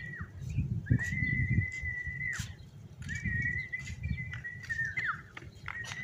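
A person whistling one long, steady note over and over, about four times, each note ending in a quick drop in pitch: a recall whistle for free-flying lovebirds. Short sharp chirps come between the whistles, over a low rumble.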